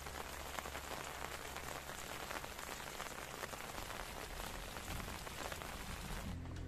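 Steady rain falling on the leaves of a pomegranate tree, a dense hiss of many small drop hits, cutting off suddenly near the end.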